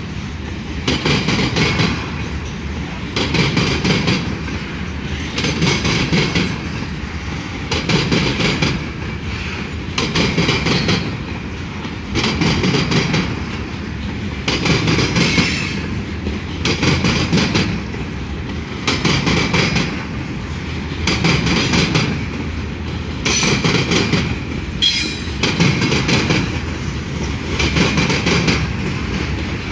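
Covered grain hopper cars of a freight train rolling past, their wheels clacking over the rail joints with a surge of noise about every two seconds as each car's trucks go by. A brief high-pitched wheel screech comes about three quarters of the way through.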